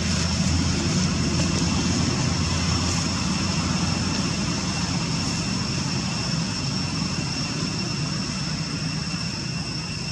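Low, steady rumble of an airplane passing overhead, slowly fading away.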